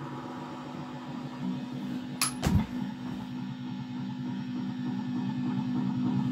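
Steady electrical hum and buzz from an electric guitar rig left on between songs, with two sharp knocks a little after two seconds in, from handling near the microphone.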